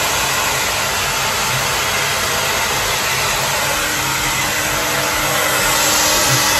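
Handheld electric hair dryer running steadily, blowing a small dog's fur dry after its bath; it gets a little louder near the end.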